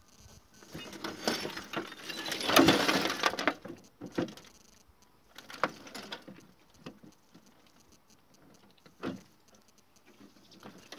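The plastic cabinet of a shot-up old television being turned over by hand, loose broken parts inside rattling and clattering. The clatter is loudest about two to three seconds in, followed by a few scattered knocks.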